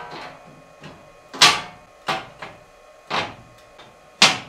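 Laser-cut stainless steel sheet parts (table stiffening ribs) clanking against a perforated stainless sheet as they are set down and slotted in: a series of sharp metallic knocks about a second apart, the loudest about one and a half seconds in.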